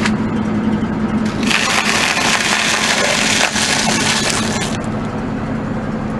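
Car tyre rolling over a stack of wafer ice cream cones on asphalt, crushing them with a dense crackling crunch that starts about a second and a half in and lasts about three seconds. A steady low hum runs underneath.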